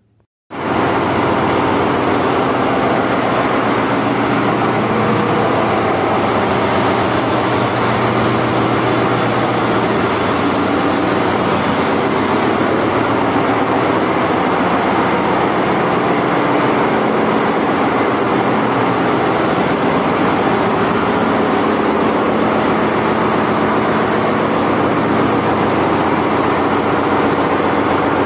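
Ship's engine-room machinery running: a loud, steady din with a constant low hum, starting about half a second in.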